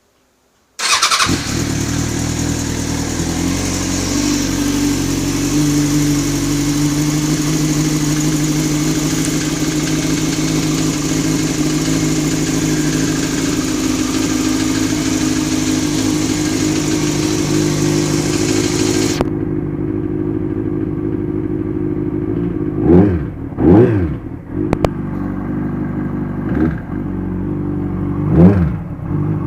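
Kawasaki ZX-6R inline-four engine idling steadily, then blipped four times near the end, the revs rising and falling quickly each time. The owner hears a strange noise in it that he suspects could be a bent valve.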